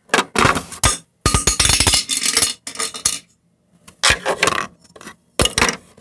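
Objects being handled: a run of knocks and clinks, some of them glassy, busiest about a second in, then a pause and a few more clatters near the end.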